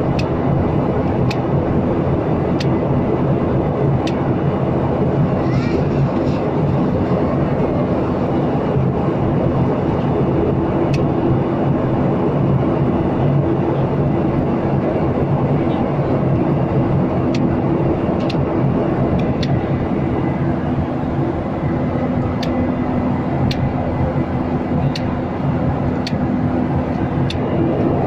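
Steady cabin noise of a jet airliner in cruise: the even rush of airflow and engines with a low hum running under it.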